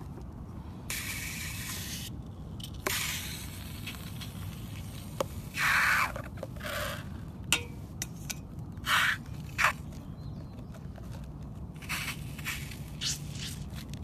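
Scissors snipping into a balloon, then thick foamy slime squelching and crackling as it is squeezed out of the balloon into a metal bowl, in a string of short wet bursts over a steady low hum.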